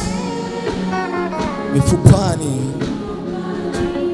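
Gospel praise music: a worship leader singing in Swahili over a live band with held keyboard chords and drum hits.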